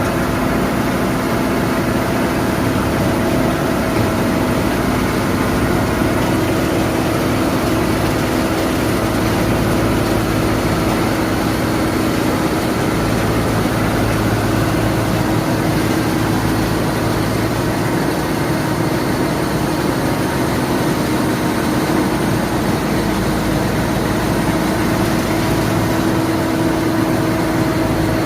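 Pezzolato PTH500 wood chipper running steadily, driven by a Fiat 140-90 diesel tractor. The engine and the chipper together make a loud, even machine noise with a constant hum.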